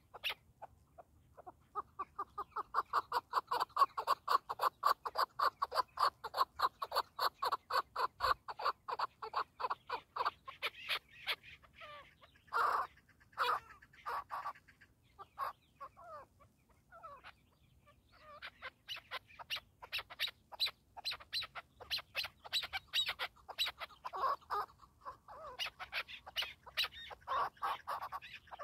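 Chukar partridge calling: a long, fast run of short clucking notes, several a second, over the first ten seconds or so. A few separate louder calls follow, then another long run of chuck notes in the second half.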